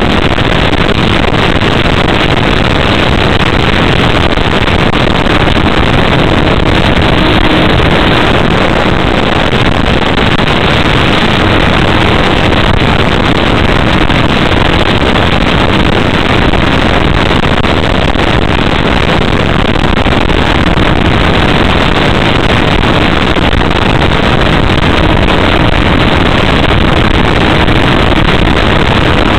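Steady, loud rush of airflow over the onboard camera of a Sky Surfer RC motor glider in flight, with the faint steady drone of its electric motor and propeller underneath.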